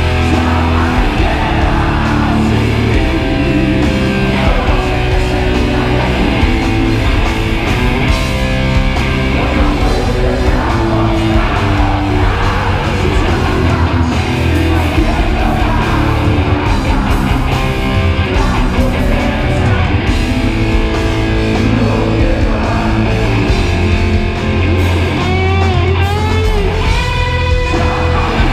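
Heavy metal band playing live, with distorted electric guitars, bass and drums under singing. Wavering, sliding high notes come in near the end.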